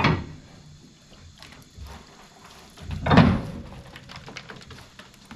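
Two heavy clunks about three seconds apart, the second louder and longer.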